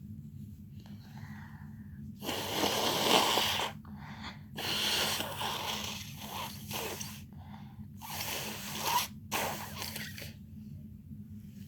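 A person blowing a runny nose: several long, noisy blasts of air through the nose, a second or two each, with short breaks between them.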